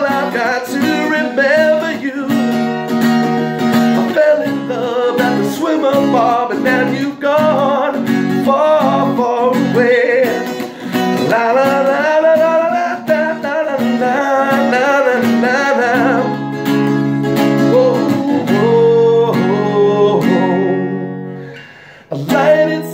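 A man singing over his own strummed acoustic guitar. About two-thirds of the way through the voice drops out and the guitar chords carry on alone, fading almost to nothing just before the end and then starting again.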